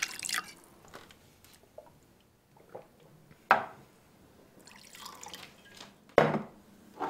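Liquid poured from a bottle into a glass at the start, followed by a few sharp, sudden sounds, the loudest about six seconds in.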